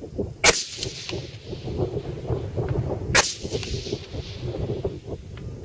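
Two shots from an AR-15 rifle firing 5.56 mm M855 ball ammunition in semi-automatic rapid fire, about two and a half seconds apart, each trailing off in a short echo, with a third shot starting right at the end. Between the shots, gusty wind rumbles on the microphone.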